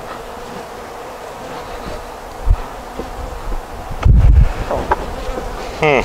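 Honey bees buzzing steadily around an opened hive. There is a short low thump about halfway through, and a louder low rumble a little later.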